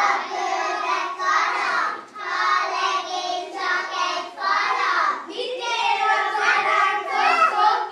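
A group of young kindergarten children singing together, in phrases broken by two brief pauses.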